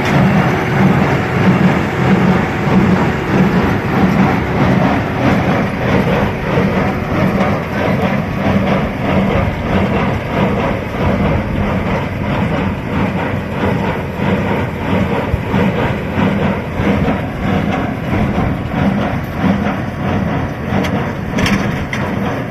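TAFE tractor running a baler: a steady diesel engine drone with an even, rhythmic pulsing from the baler's moving parts.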